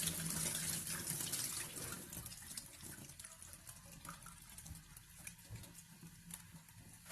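Tap water running into a bowl as brown rice is rinsed, with small clicks and rattles from the grains and bowl. The water is strongest for the first couple of seconds, then softer.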